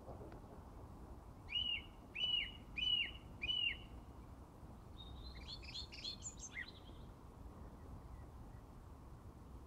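A songbird singing: four loud, evenly spaced slurred notes about half a second apart, then a second later a quieter, jumbled higher twitter.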